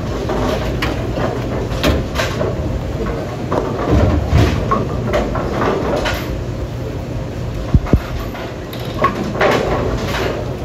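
Bowling center ambience: a steady low rumble with scattered knocks and clacks, a deeper rolling rumble about four seconds in, and two sharp cracks close together near eight seconds.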